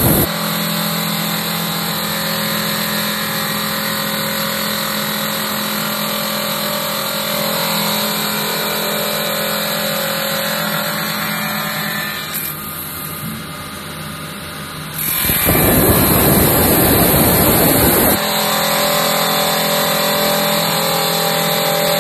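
Blind-stone fringe machine running, its electric motor giving a steady hum. About two-thirds of the way in, a louder rushing noise comes in for a few seconds.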